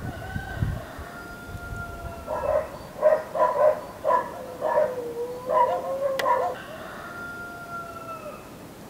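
Rooster crowing: long drawn-out notes with a run of short, loud calls between them, and a single sharp click about six seconds in.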